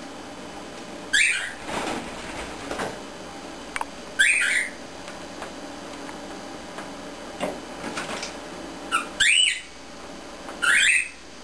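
Cockatiel giving four short, loud calls a few seconds apart, the last two about a second and a half apart.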